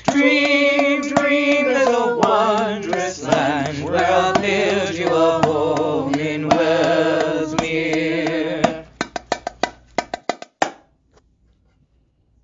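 Vocal quartet singing a song in harmony over drum accompaniment, the voices holding long wavering notes. About three-quarters of the way through the singing stops, and a run of quick drum strikes, about five a second, closes the piece.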